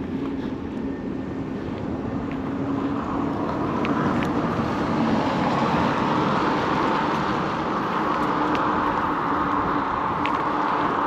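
Road traffic noise: a steady rush of car tyres and engines with a low hum under it, growing louder about four seconds in and staying up.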